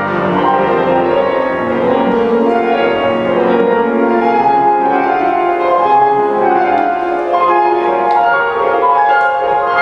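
A grand piano and a large ensemble of digital keyboards playing a tango together, with continuous pitched notes throughout.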